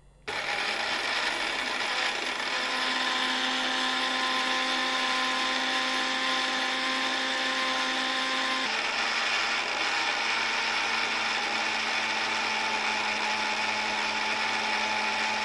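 Orpat 1200-watt mixer grinder switched on and running loud and steady, grinding whole dry red chillies in its small stainless-steel jar. It starts about a quarter second in, and its tone shifts abruptly about nine seconds in.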